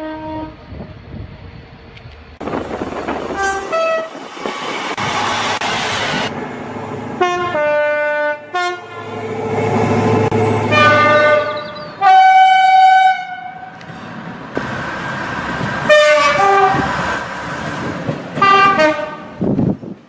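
A string of train horn blasts from different trains, about seven in all, some short toots and some longer two-tone sounds, with the rumble of a passing train around the middle.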